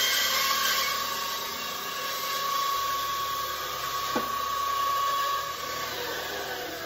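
Small benchtop bandsaw running with a steady whine as it finishes a circle cut through a butcher-block slab. A single click comes about four seconds in, and the whine stops about six seconds in.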